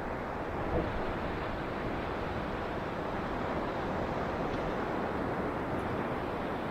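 Ocean surf on a beach: a steady rush of waves, with no single break standing out.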